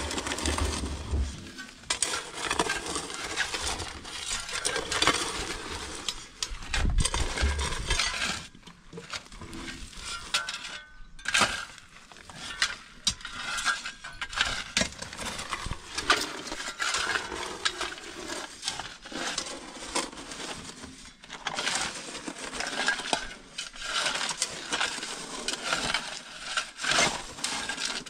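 Steel shovels scraping into stony, gravelly soil, the blades grating and clinking against rocks in an irregular, continuous run of digging strokes.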